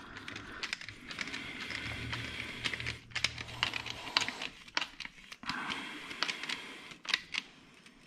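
Hand screwdriver working a screw in a plastic throttle-by-wire accelerator pedal: irregular small clicks and scraping of metal on plastic as the pedal is handled.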